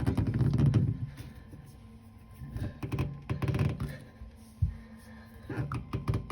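Knocks and clatter of hand tools working metal faucet parts as they are fitted and tightened, in several short bursts, with one sharp thunk just past the middle.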